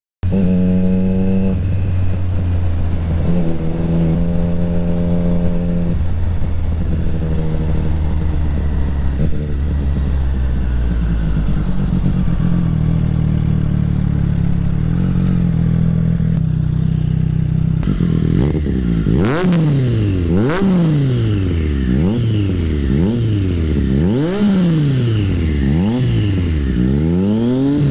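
Triumph Street Triple RS inline-three engine with an SC Project SC-1 aftermarket exhaust, first running under way with its pitch stepping up and down through the gears. About two-thirds through it is revved up and down over and over, roughly once a second, with two sharp cracks among the first revs.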